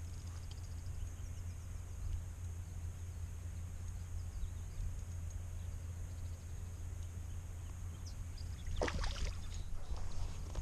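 River water flowing over a steady low rumble, with a short cluster of sharp splashes or knocks about nine seconds in.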